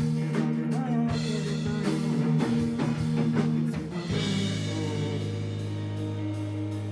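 Live rock band playing, with electric guitar and a drum kit keeping a steady beat. About four seconds in, the drums drop away and a held low chord rings on.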